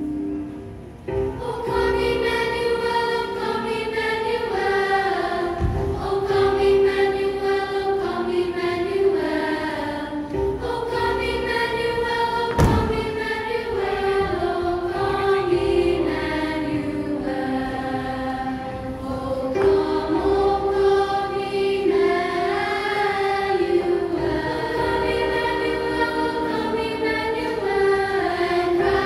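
A choir singing a Christmas cantata song with music. A short dip in the singing about a second in, and two brief knocks, a few seconds in and about halfway through.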